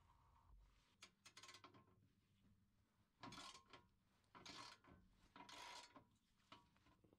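Hand socket ratchet clicking in four short spells as it turns a skid plate bolt.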